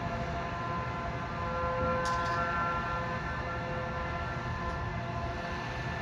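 Outdoor tornado warning siren holding a steady tone, swelling louder about two seconds in and then easing back, over a low rumble; it is a routine test, not a warning.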